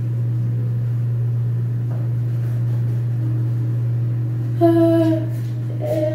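A steady low hum throughout, with a brief held vocal sound from a person about four and a half seconds in.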